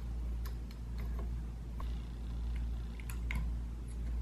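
Small metallic clicks and ticks of an Allen key seating in and turning the set screws of an air-rifle scope mount, a handful of irregular taps with the sharpest a little over three seconds in, over a steady low hum.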